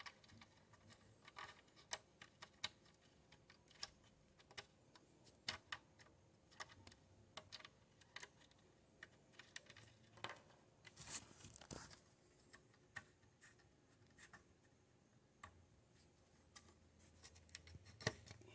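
Faint handling noise of the recording phone: fingers rubbing and tapping on it make scattered irregular clicks and scratches, with a longer rustle about eleven seconds in.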